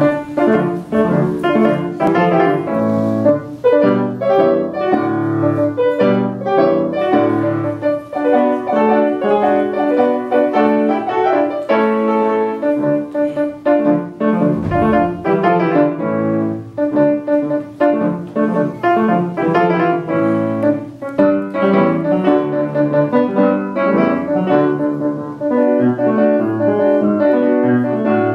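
Solo grand piano played in quick, continuous runs of notes, with no break.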